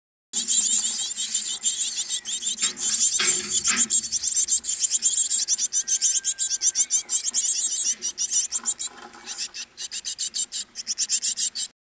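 Great tit nestlings begging: a dense, rapid run of short high-pitched chirping calls, many each second, that thins and falls quieter for a moment about three-quarters of the way through before picking up again.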